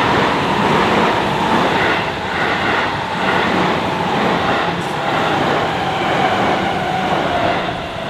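A Seibu Ikebukuro Line train passing through a level crossing: a loud, steady rush of wheels on rail with a faint regular beat about twice a second. The crossing's warning bell sounds beneath it, and the train noise fades near the end as it clears the crossing.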